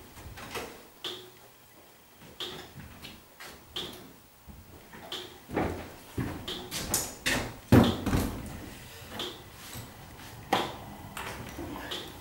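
Footsteps and a wooden chair knocking and bumping on a wooden floor as it is picked up, carried and set down, the loudest knock about eight seconds in. A faint, short, high tick repeats about every second and a quarter throughout.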